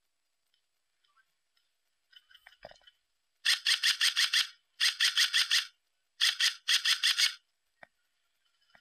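Airsoft electric gun (AEG) firing on full auto: four short bursts of rapid, evenly spaced shots, the last two close together.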